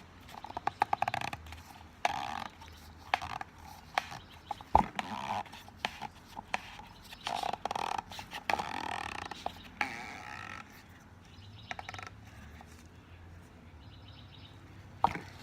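Scattered clicks, knocks and scraping of a new oil filter element being pushed and twisted onto its filter cap, with a quick run of clicks about a second in and a sharp knock a little before five seconds.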